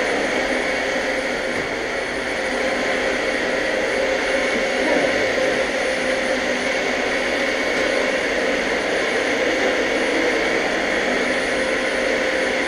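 Vacuum cleaner running steadily, a constant whine without a break.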